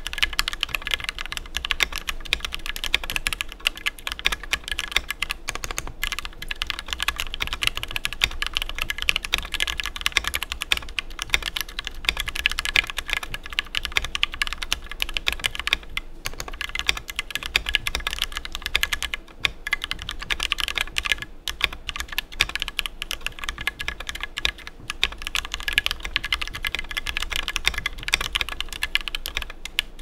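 Continuous fast typing on a custom 60% mechanical keyboard: lubed and filmed Gateron Black Ink linear switches on a 3D-printed PLA plate in a Tofu60 tray-mount case, with PBT keycaps, broken by a few short pauses. A metallic ping rides over the keystrokes, which the builder puts down to the case's middle standoff rather than the plate.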